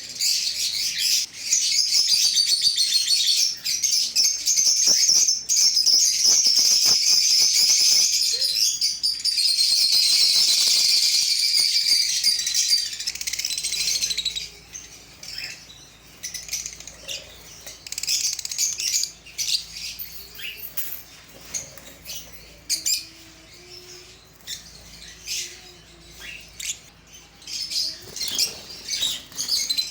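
Caged parrots chirping and chattering: a dense, continuous chorus for roughly the first half, then scattered chirps mixed with short clicks and wing flaps.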